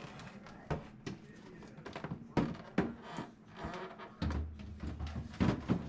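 Plastic refrigerator crisper bin being handled and slid back into place, making a series of light knocks and clunks.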